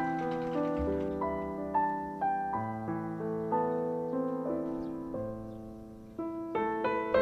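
Background piano music: a slow, gentle melody of struck notes and chords, each ringing out and fading. It thins out and grows quieter a little before the end, then new notes come in.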